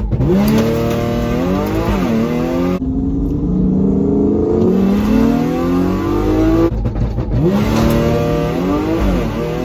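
Tuned 2015 Audi S5's supercharged 3.0-litre V6 at full throttle through the gears, heard from inside the cabin. The engine note climbs and drops sharply at each upshift, in three separate runs cut together.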